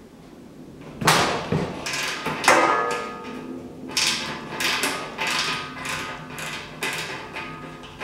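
Ratcheting wrench loosening the locking set screw on a condenser fan blade's hub: a run of ratchet strokes, starting about a second in and coming a little faster than once a second, each a burst of clicking with a metallic ring.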